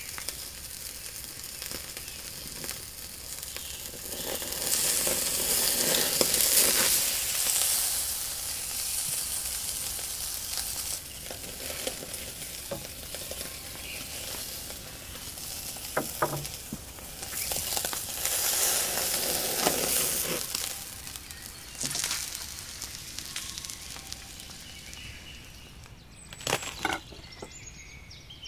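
Tomahawk steak sizzling on the grate of a cast-iron charcoal grill, fat hissing and crackling steadily and swelling louder twice. A few sharp clicks come near the end.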